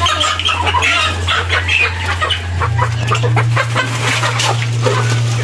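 Chickens clucking, many short calls overlapping throughout.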